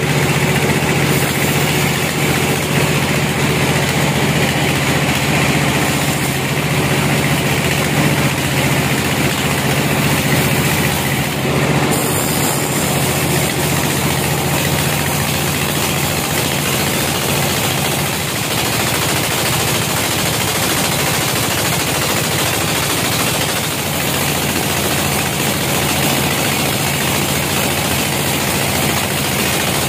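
Band sawmill running, its band blade sawing lengthwise through a log as the carriage feeds it. The machine noise is loud and continuous, with a low drone that shifts about twelve seconds in and fades a few seconds later.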